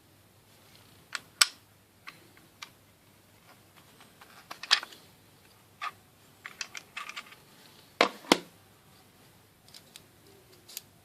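Irregular sharp clicks and clacks from handling a magnetic precision screwdriver set and its case, with a run of small quick clicks partway through and the loudest pair of snaps about eight seconds in.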